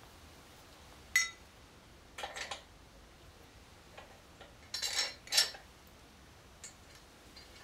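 Steel brackets, bolts and nuts of a bottle-jack strut spring compressor clinking and clanking as they are handled and fitted. There is a sharp clink with a short metallic ring about a second in, a couple of clinks around two seconds, and the loudest pair of clanks around five seconds.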